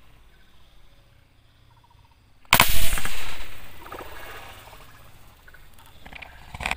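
A spear-gun shot at a gourami in the lake: a sudden loud splash at the water surface about two and a half seconds in, trailing off over about a second and a half, then a shorter splash near the end.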